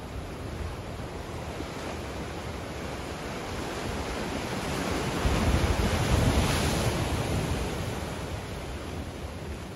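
Waves washing against a rocky shore, one wave swelling to its loudest about halfway through and then ebbing away, with a low rumble of wind on the microphone.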